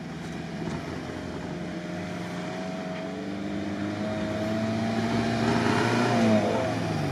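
Toyota Land Cruiser 70-series engine pulling through loose sand, its revs and loudness climbing gradually as it approaches, then dropping back near the end.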